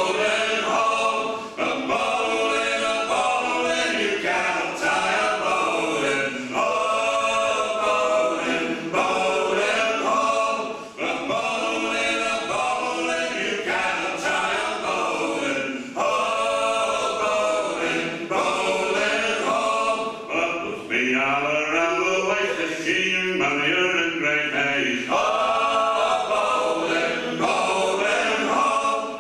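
Four-man male vocal group singing a maritime folk song unaccompanied in harmony, in phrases of about two seconds each.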